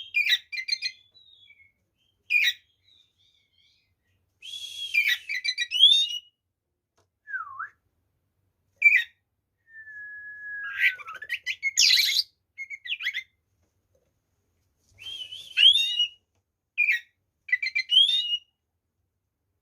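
Oriental magpie-robin (kacer) in full aggressive 'fighting' song: loud whistled phrases, quick trills and rising and falling slurs, separated by short pauses, with a long falling whistle about half-way through.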